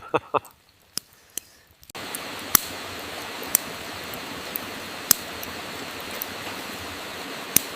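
Rain starting abruptly about two seconds in as a steady hiss, with sharp pops and ticks scattered throughout, a few each second at first and then about one a second.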